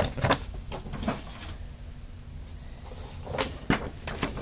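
Paper posters rustling and crackling as they are handled and unfolded, in short rustles at the start, about a second in, and again around three and a half seconds in.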